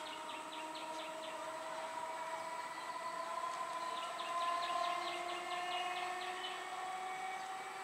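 EMU electric suburban train approaching, its traction motors giving a steady whine of several tones that rise slowly in pitch and grow louder towards the middle. A bird's rapid high chirping comes in two short runs, at the start and from about four seconds in.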